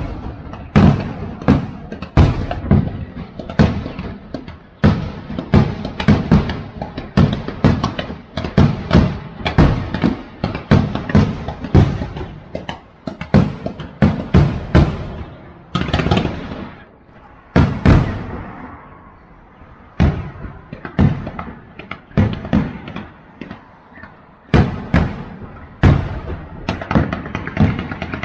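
Fireworks going off: a long, irregular series of sharp bangs, each trailing off in an echo, with a short lull past the middle.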